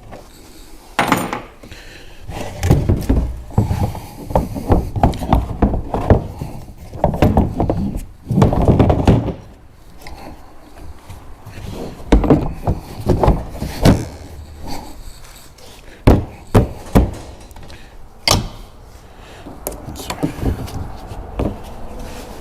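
Hard plastic cargo box being handled and fitted into a UTV's bed: an irregular run of thunks, knocks and scraping, with a few sharp single knocks past the middle.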